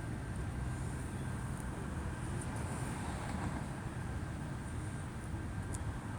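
Steady low rumble of outdoor city background noise, with a couple of faint ticks.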